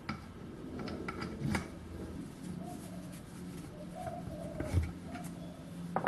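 Light clinks and knocks of small steel lathe parts being handled and set down, with a cluster of sharp taps about a second in and a few more near the end.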